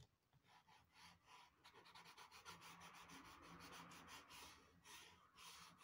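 Derwent pastel pencil scribbling on Clairefontaine Pastelmat paper, laying in a background with fast back-and-forth strokes, several a second. Faint and scratchy.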